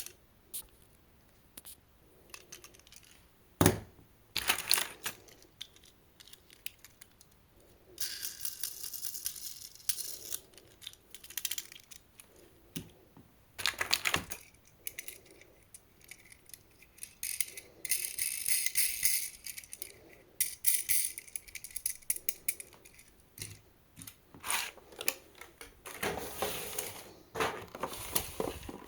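Small toy cars being handled: many sharp clicks and rattles of little die-cast and plastic cars knocking together, with a few longer stretches of rustling or scraping, as of packaging or cars sliding.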